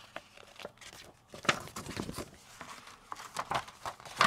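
Folded paper foldout poster being unfolded by hand: irregular crinkling and rustling of the paper, with sharper crackles about a second and a half in and again near the end.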